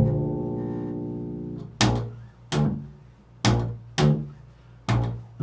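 Low plucked string notes in an improvised tone poem: one note rings out for nearly two seconds, then a run of short plucked notes follows, roughly one every half second to a second, each dying away quickly.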